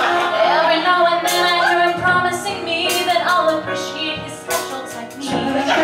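A woman singing a cabaret song into a microphone, her voice gliding and holding notes over sustained instrumental backing.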